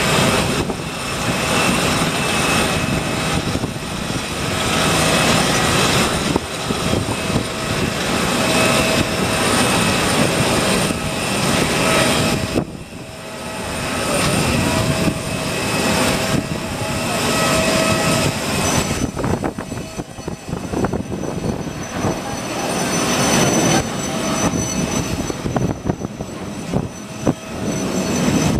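Jet airliner engines at take-off power, a steady loud roar with a few whining tones through it, during the take-off roll and climb-out. The sound jumps abruptly twice, about halfway and again a little later, at edits.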